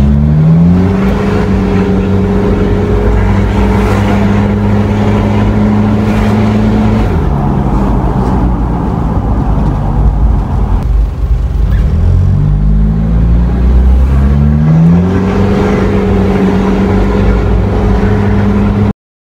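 Mitsubishi 4M40 2.8-litre four-cylinder turbo diesel heard from inside the cab while driving. The engine note climbs, holds, falls about seven seconds in, then climbs and holds again, pulling on boost that reaches about 1.5 bar after a fuel increase on its Bosch VE injection pump. It cuts off suddenly near the end.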